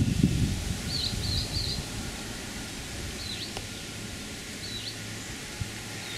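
Outdoor ambience with a small bird's short, high chirps repeating every second or two, including a quick run of chirps about a second in. A low rumble sounds in the first second.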